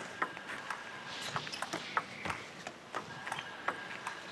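Table tennis ball clicking off the bats and the table in a rally, about three sharp clicks a second.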